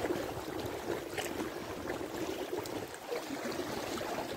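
Steady rush of fast-flowing river water rippling around an inflatable kayak as it runs down the current.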